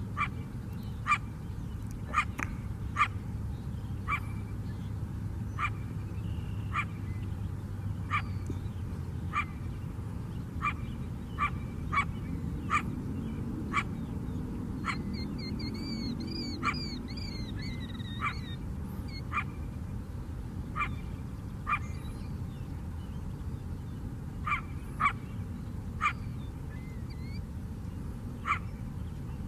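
A coyote barking over and over: short, sharp barks at uneven spacing, roughly one a second.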